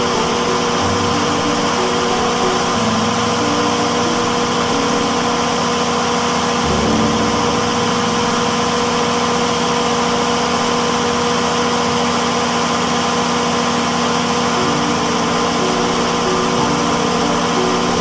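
Generator set's engine running steadily at a constant speed.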